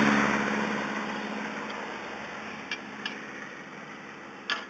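A passing motor vehicle's engine, loud at first and fading steadily away. Three short, sharp clicks come in the second half, the last about four and a half seconds in.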